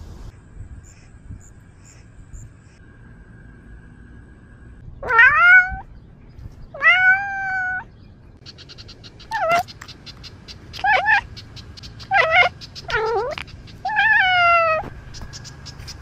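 A cat meowing loudly and close by, seven drawn-out calls with pitch that bends up and down, beginning about five seconds in and coming every second or two.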